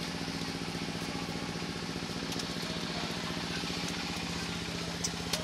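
A small engine idling steadily, with an even, rapid pulse and a steady low hum.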